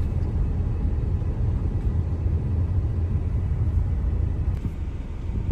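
Car driving along, a steady low road rumble.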